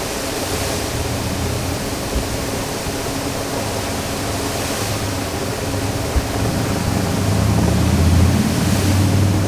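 Revson Fountain's water jets splashing into the basin in a steady rush that swells a few times as the central jets surge up. A low rumble grows louder from about seven seconds in.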